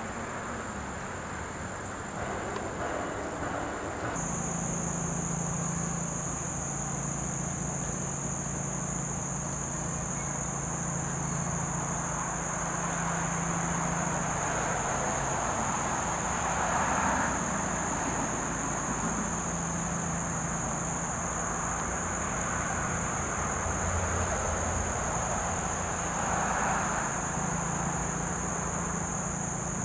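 Insects chirring in a steady, high-pitched drone that gets louder about four seconds in, over a low steady hum and a soft rushing wash that swells twice.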